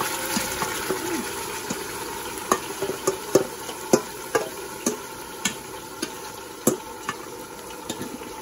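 Marinated chicken sliding from a stainless steel bowl into hot oil and fried onions, sizzling, the sizzle slowly dying down. A metal spoon scrapes the bowl out, clinking against the steel a dozen or so times from a couple of seconds in.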